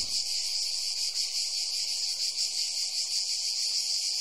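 Chorus of insects singing outdoors: a steady, high-pitched, finely pulsing trill.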